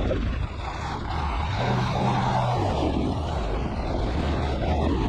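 Delivery truck engine and road noise, heard from inside the cab as a steady low rumble. A low engine hum stands out for about a second, a second and a half in.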